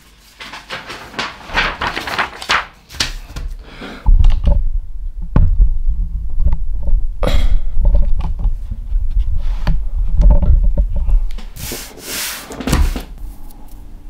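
Handling noise of a camera or microphone being moved about: knocks and rubbing at first, then from about four seconds in heavy, uneven low rumbling and bumps.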